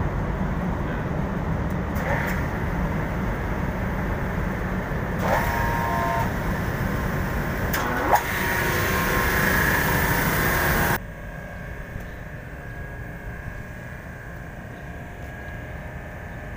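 Rooftop central air-conditioning machinery (compressor and condenser units) running with a steady, loud rumble. A hiss joins it about five seconds in, there is a thump just after eight seconds, and the whole noise drops sharply about eleven seconds in.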